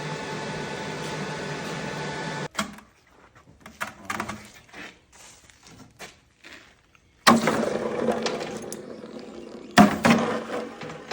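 A machine runs steadily with a hum, then cuts off abruptly about two and a half seconds in. Light clicks and knocks follow. Twice near the end, a loud noise starts sharply and dies away over a second or two.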